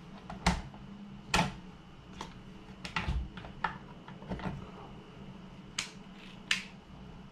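Irregular light clicks and taps from handling a Quantum Accurist baitcasting reel as it is worked on and taken out of the clamp of a benchtop line-spooling station, with a few sharper clicks among quieter ones.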